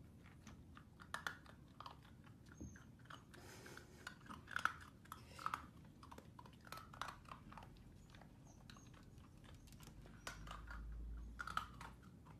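A dachshund chewing food, with irregular crunches and clicks of its teeth.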